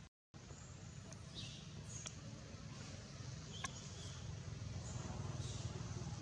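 A few faint, short, high-pitched squeaks and chirps scattered over a steady low rumble, after a brief dropout at the very start.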